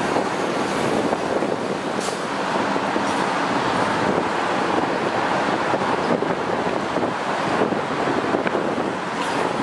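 Steady, even noise of road traffic, with some wind on the microphone.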